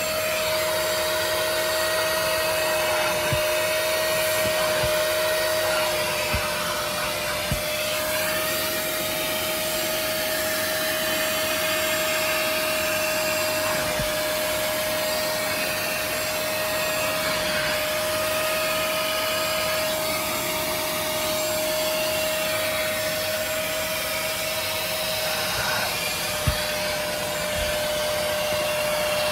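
Bissell SpotClean Pet Pro carpet extractor running steadily, its motor giving one even high whine over the rush of suction as its pet tool is worked over car floor carpet. A few light knocks come through now and then.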